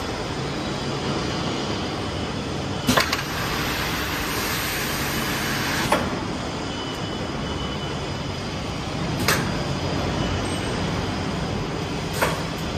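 HE-217-B fabric pleating machine running steadily with a low hum, with a sharp knock about every three seconds as it cycles through its pleating strokes.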